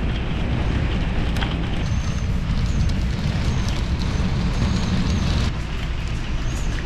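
Strong windstorm gusts blowing, a loud, low noise that eases slightly near the end.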